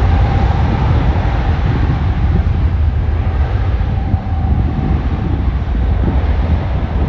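Boeing 777-300ER's twin GE90-115B jet engines at takeoff power during the takeoff roll: a loud, steady rumble with a faint steady tone above it for the first few seconds.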